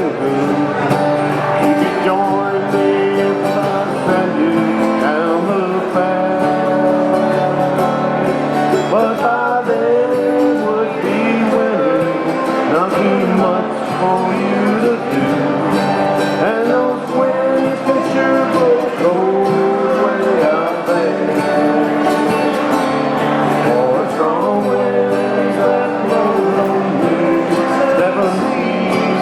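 Live acoustic folk-country music: strummed acoustic guitars with a sung melody over them, at a steady level.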